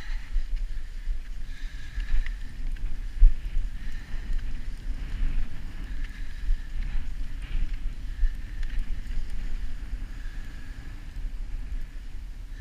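Wind buffeting the microphone in a steady low rumble, over the faint swish of cross-country skis gliding on snow while being pulled along by a dog.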